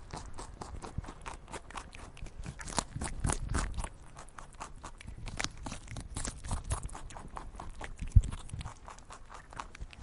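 Irregular crunching and clicking of an animal feeding, with one sharp knock about eight seconds in.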